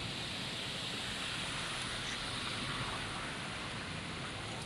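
Steady rushing hiss of floodwater pouring into a culvert inlet as the debris blocking it is cleared.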